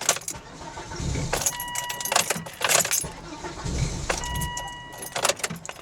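Volvo engine briefly catching and firing twice, starved of fuel with the tank nearly empty after a fuel pump replacement, while a dashboard warning tone sounds twice. Sharp clicks and key jingling come in between.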